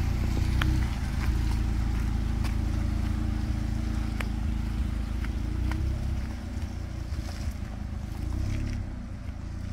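Low, steady rumble of an off-road SUV engine and tyres driving along a dirt trail, with a few sharp ticks of stones or debris. The rumble eases slightly near the end.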